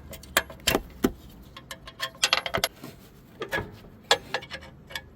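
Small metal parts clicking and clinking, irregularly spaced, with a quick run of clinks a little past two seconds in: washers, cotter pins and steel deck-hanger brackets being handled while a riding mower's deck is unhooked.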